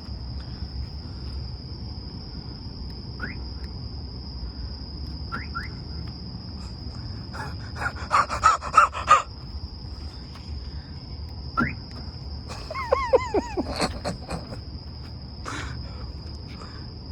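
Outdoor ambience: a steady high-pitched insect drone over a low rumble, with short rising chirps now and then. Two louder bursts of chirping calls come about eight and thirteen seconds in, the second with falling, arching tones.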